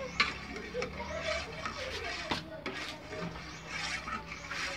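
A spoon stirring a thick gelatin mixture in the metal inner pot of a rice cooker, with a few sharp clinks as it knocks against the pot. Faint music plays in the background.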